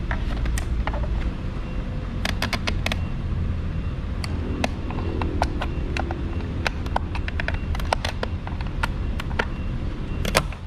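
Sharp plastic clicks and taps, often several in quick succession, as a screwdriver pries at the clips holding the back cover on a Mazda CX-5 side-mirror housing. A steady low traffic rumble runs underneath.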